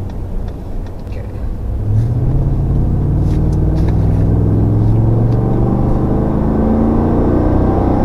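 2016 Ford F-150's 5.0 V8 heard from inside the cab over road noise. About two seconds in it pulls harder and its note climbs steadily as the truck accelerates.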